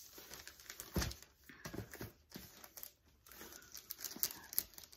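Gift wrapping paper crinkling and tearing as a wrapped box is unwrapped by hand, with a soft thump about a second in.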